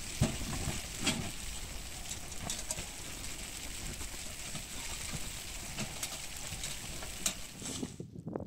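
Food sizzling in a frying pan, with a few sharp clicks of a utensil against the pan; the sizzle cuts off abruptly near the end.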